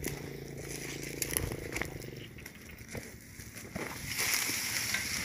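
Footsteps crunching through dry leaf litter and brushing past low plants, with scattered crackles and snaps of twigs underfoot. A steady high hiss comes in near the end.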